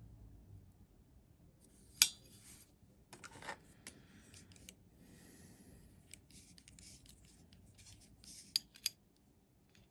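Faint handling noises of a small aluminium plate and a pair of digital calipers: scattered light clicks and taps with short stretches of rubbing and sliding, a sharp click about two seconds in, and two sharp clicks near the end as the caliper jaws are closed on the plate.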